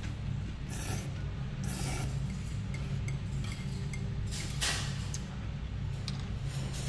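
Eating noodle soup: a few short, noisy slurps, the strongest about two-thirds of the way through, with faint clinks of tableware, over a steady low hum.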